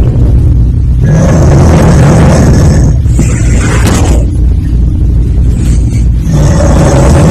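A person snoring very loudly: a constant low, rough rumble, with rasping, hissing breaths swelling up about every two to three seconds.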